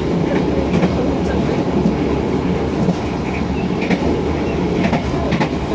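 Commuter Line Dhoho passenger train running along the track, heard from the rear of its last carriage: a steady rolling rumble of steel wheels on the rails, with a few light clicks.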